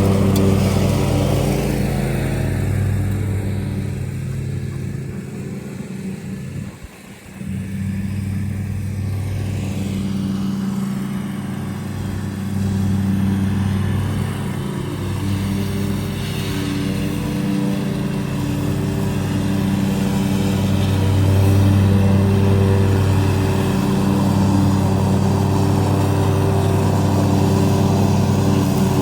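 Lawn mower engine running steadily under load, its sound dipping briefly about seven seconds in before coming back up.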